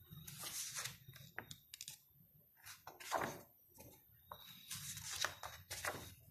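Paper pages of a photo book being turned by hand: several brief, irregular swishes and rustles of paper.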